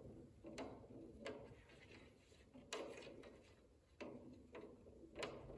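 Wooden stir stick stirring thin wood stain in a metal gallon can, giving about five light knocks and taps roughly a second apart as the stick strikes the side of the can.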